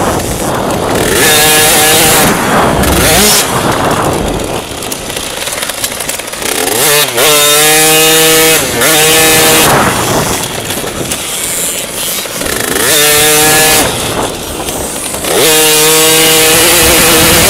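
Motocross dirt bike engine at race pace, heard from the bike itself: the revs climb hard several times and drop away between, as the rider goes on and off the throttle through the corners and straights.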